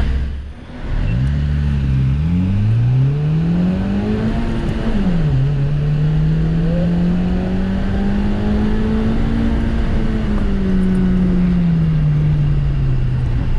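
Honda Fit's 1.5-litre four-cylinder engine pulling hard at the start of an autocross run. It revs up for about four seconds, drops sharply about five seconds in, then holds and climbs gently before easing off near the end.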